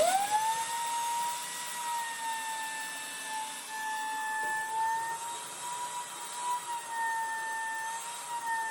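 Wet/dry vacuum switching on, its motor spinning up within about a second to a steady whine that wavers slightly in pitch as it sucks the standing water out of a toilet bowl.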